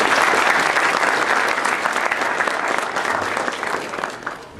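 Audience applauding a speaker as he comes to the podium, the clapping dying away near the end.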